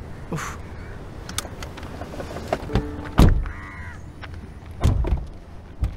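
Car doors thudding shut, the loudest slam about three seconds in and two more near the end, with a crow cawing once just after the loudest slam.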